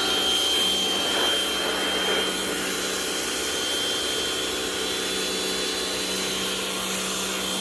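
Rock&Rocker HWY12 electric pressure washer running steadily, its motor humming with a high whine over the hiss of the water jet as it sprays.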